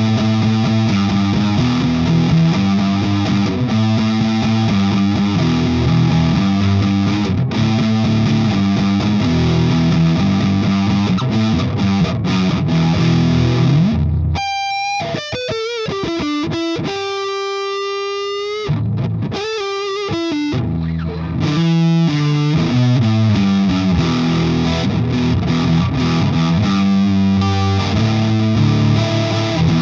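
Electric guitar played through the Anvil FX Kitsune fuzz pedal, a hand-built modified Big Muff, with heavy fuzz distortion: chugging chords and riffs, which give way about halfway through to single long-held lead notes with slight bends before the heavy chords return.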